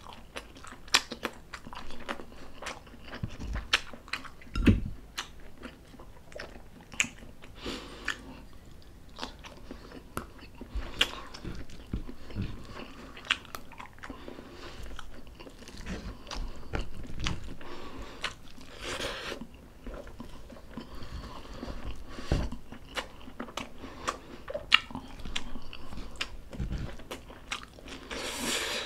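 Close-miked mukbang eating: a person chewing and biting food, with many irregular wet mouth clicks and crunches. A few dull thumps come around four seconds in and again near the end.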